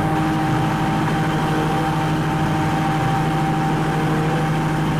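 A motor running steadily: an even hum with a few higher steady tones over a hiss, keeping the same pitch throughout.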